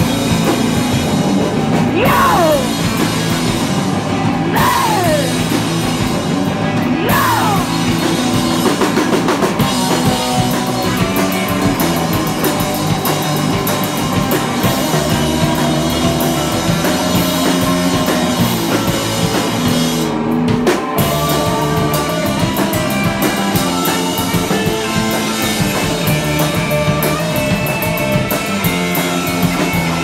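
Live rock band playing loud, with drum kit and electric guitars. Several falling pitch swoops come in the first eight seconds, and the cymbals briefly drop out about twenty seconds in.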